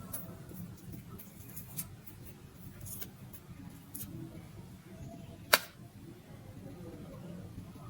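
Kinetic sand being handled and cut with a tool, giving soft scattered clicks and crunches, with one sharp click about five and a half seconds in.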